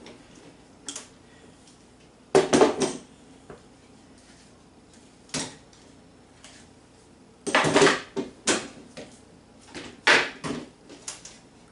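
Clamps being loosened and taken off a glued wooden bench: several separate bursts of metal clattering and knocking, the loudest around two and a half seconds in and again near eight seconds in.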